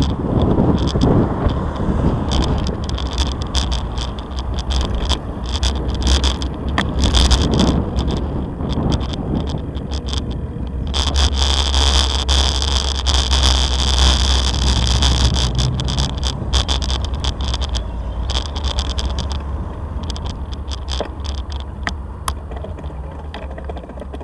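A bicycle rolling over a block-paved cycle path: a steady rumble from the tyres with frequent rattling clicks from the bike, heard from a camera mounted on it.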